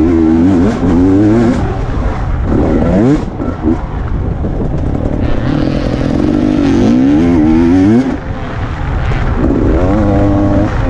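Enduro motorcycle engine revving up and easing off again and again as the bike is ridden hard along a dirt track, heard on board the bike. The throttle briefly closes about eight seconds in, then the engine climbs again near the end.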